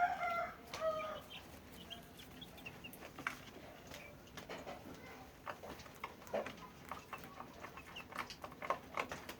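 Chickens clucking, with a few short pitched calls in the first second. A run of quick clicks and taps follows.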